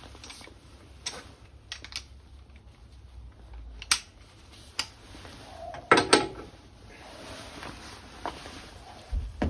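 Hand tools being handled: irregular sharp clicks and knocks, the loudest a double knock about six seconds in, as a socket, extension bar and long breaker bar are fitted to the hub nut.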